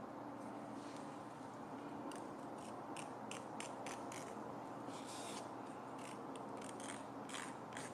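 A thin stick scraping softened old paint from a stripped metal stand base, in a string of short, irregularly spaced scratchy strokes starting about two seconds in.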